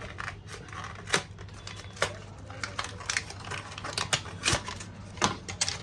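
Sharp, irregular clicks and taps of laptop parts being handled during disassembly, over a steady low hum.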